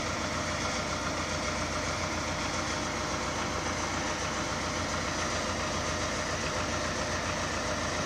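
Engine of a tractor-based road vacuum sweeper running steadily while the machine stands in the street, an even, unbroken chugging drone with a strong low rumble.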